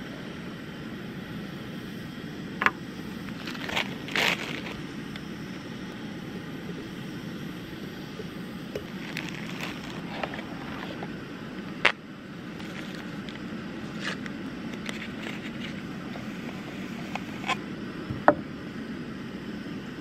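A steady low rush throughout, with a few sharp clinks and knocks as a glass French press and its lid are handled on a picnic table beside a camp stove.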